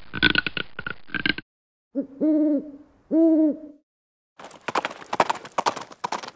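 A shoe squeaking on a hard floor for about a second and a half, then two owl hoots, each under a second, then from about four seconds in a fast clatter of clip-clopping hooves.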